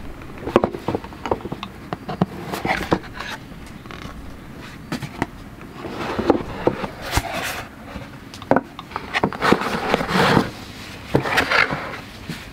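Close handling of a cardboard gift box on a wooden table: irregular light taps, scrapes and rubbing as the lid comes off, then the rustle of a cloth drawstring bag being lifted out near the end.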